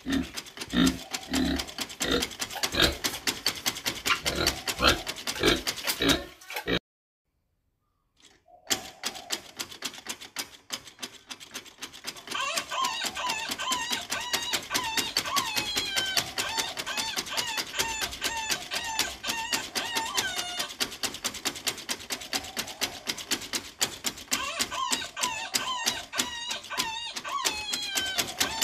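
Pig grunting and oinking in a steady rhythm for about seven seconds, then a short silence. After that, chirping like small birds over a fast, steady clicking.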